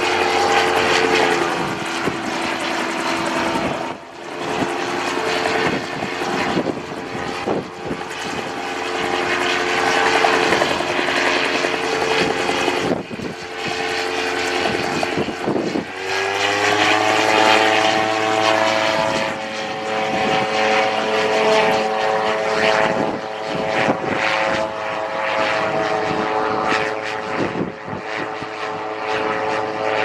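ELA 08 gyroplane flying past: its engine and pusher propeller drone steadily. The engine note dips slightly about a second in and rises again about halfway through.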